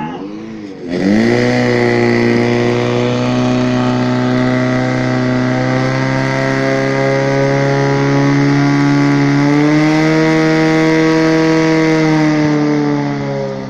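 Portable fire pump's engine revving up about a second in, then running flat out at a steady high pitch while it pushes water through the hoses to the spraying nozzles. Its pitch drops near the end as it is throttled back.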